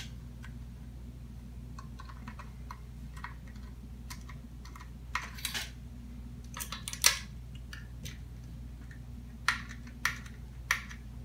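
Small plastic and metal clicks and clatters from handling a 2.5-inch SSD and its drive adapter, which is not seating. The clicks come in scattered clusters, the loudest about seven seconds in, over a steady low hum.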